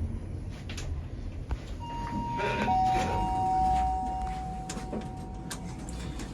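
Otis lift's two-note arrival chime, a higher note then a lower one, each ringing on for about four seconds over a low rumble.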